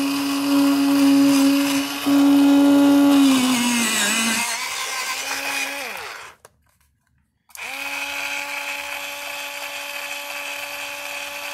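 X-ACTO Mighty Mite electric pencil sharpener's motor running with a steady hum as a pencil is sharpened, its pitch sagging slightly a few seconds in as the blades bite. It stops about six seconds in, then starts again after about a second and runs on.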